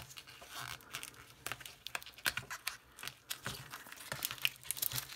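Clear plastic coin packaging being torn open by hand, crinkling and crackling in irregular bursts.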